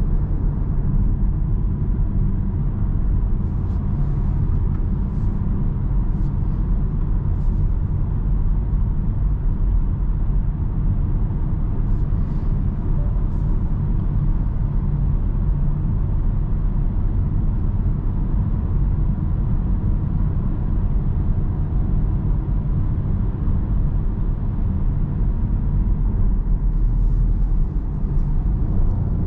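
Cabin noise of a 2021 Citroen C4 cruising at about 70–80 km/h, with its 1.2-litre PureTech three-cylinder petrol engine and tyres making a steady low rumble. A few faint ticks come through in the first half.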